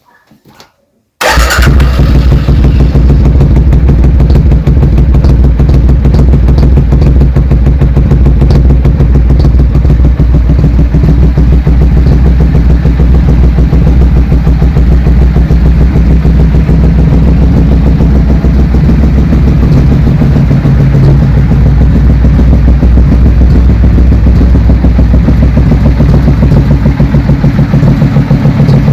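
1990 Suzuki Intruder VS750's V-twin engine starting about a second in, then idling steadily through its exhaust.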